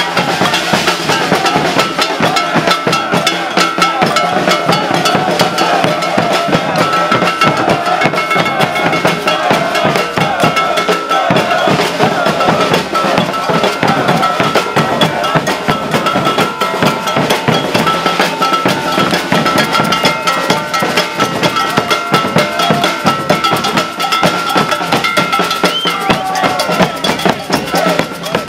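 Maracatu percussion ensemble playing a dense, driving rhythm: alfaia bass drums and snare drums under a clanging iron bell.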